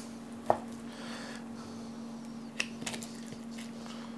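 Knife cutting raw pork shoulder on a wooden cutting board, with a few light, sharp clicks of the blade, one about half a second in and a couple more past the middle, over a steady faint hum.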